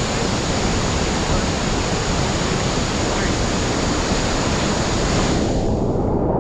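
Steady roar of La Fortuna waterfall crashing into its pool close by. About five and a half seconds in, the sound suddenly turns duller as its upper hiss drops away.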